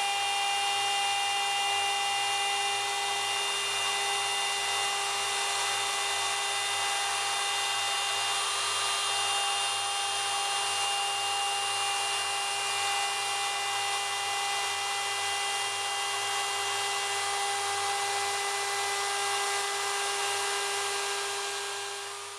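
Wood router motor on a DIY CNC machine running at full speed with a steady high whine while its bit cuts a straight groove through a pine board; the sound fades out near the end.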